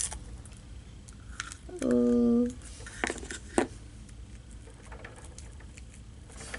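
Hardened slime being pressed and handled in a small clear plastic tub: a couple of sharp plastic clicks and soft rubbing, with a short steady hummed note about two seconds in.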